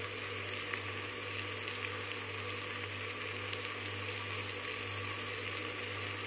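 Vegetables frying in oil in a clay pot, a steady even sizzle, with a steady low hum underneath.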